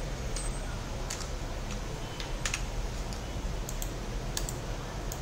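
Computer keyboard keys clicking as text is typed and corrected: scattered, irregular keystrokes over a steady low background hum.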